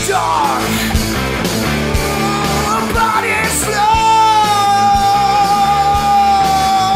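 Rock song with guitars and a singer; about halfway through the singer holds one long, steady note.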